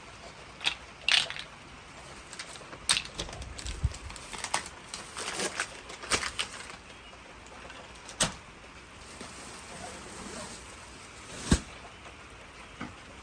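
Handling noise from unpacking patio furniture and its cushions: scattered clicks and knocks with rustling between them, and one sharper knock near the end.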